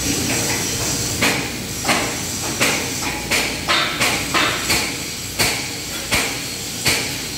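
A hammer striking steel about eleven times, roughly one blow every two-thirds of a second, with a quicker run of blows in the middle, each blow ringing briefly. Behind it is a steady hiss from the welding shop.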